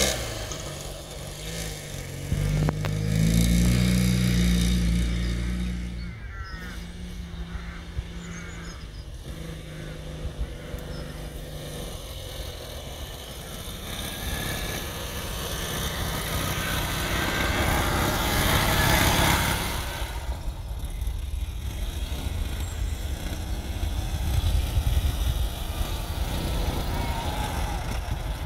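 A 1962 Triumph Tigress scooter's engine running as it is ridden, its note rising and falling with the throttle and swelling louder twice.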